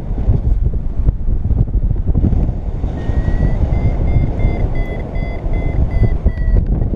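Wind rushing over the microphone in flight. About three seconds in, a paragliding variometer starts beeping: a high tone that rises slightly in pitch and breaks into a rapid string of short beeps, the instrument's signal that the glider is climbing in lift.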